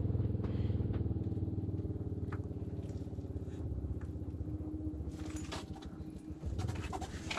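A small engine running steadily with an even pulsing hum, easing off slightly in the last couple of seconds, with a few light clicks over it.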